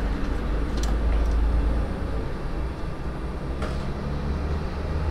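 A few faint clicks and scrapes as the screw-cap fuse holder on a UPS is unscrewed to get at the fuse, which has blown. A steady low hum runs underneath.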